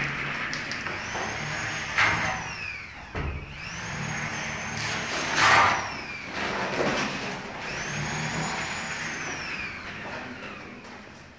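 Aluminium sliding window sashes rolling along their tracks, pushed back and forth about three times: a rolling rumble with a faint whine that rises and falls with each slide. Short knocks come as a sash meets the frame, the loudest about five and a half seconds in.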